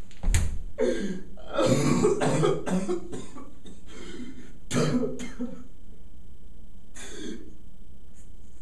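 A man's staged sounds of pain, coughing and gasping in short bursts through the first half and once more near the end, as he acts out being beaten. A low thump about a third of a second in as he drops to the floor.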